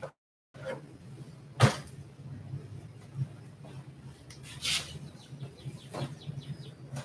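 Household handling noises while a room is tidied: a sharp knock about a second and a half in, then a rustle and another knock, over a low steady hum. The sound cuts out briefly at the start.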